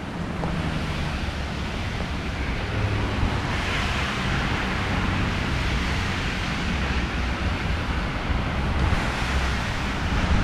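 Strong, gusty wind rushing over the camera microphone, with a low rumble underneath. The rush swells in gusts about four seconds in and again near the end.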